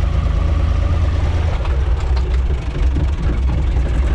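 UTB 445 DT tractor's diesel engine running steadily as the tractor drives along, heard from inside the cab, with a short dip in level about two and a half seconds in.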